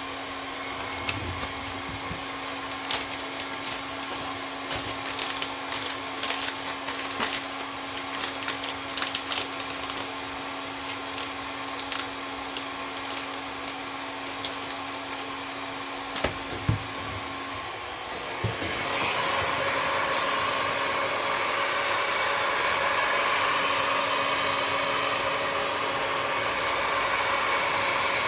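Hot-air heat gun blowing steadily, warming the adhesive under a newly fitted phone screen so it bonds. Light clicks and taps come and go through the first half, and about eighteen seconds in the hiss of the air grows louder.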